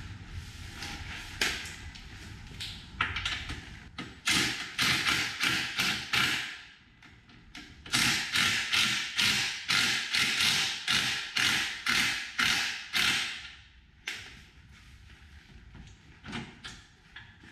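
Hand ratchet with a socket being worked in quick back-and-forth strokes, clicking about twice a second, in two runs with a pause between. It is snugging up a mounting bolt.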